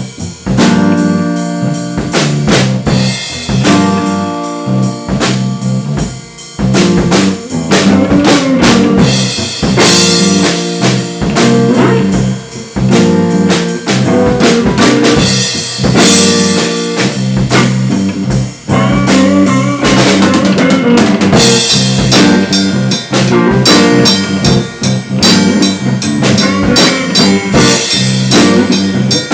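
A garage band jamming: a drum kit keeps a steady beat of bass drum, snare and rimshot hits under sustained pitched instrument lines.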